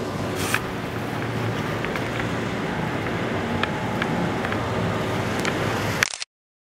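Boat engine running steadily under wind buffeting on the microphone; the sound cuts off suddenly near the end.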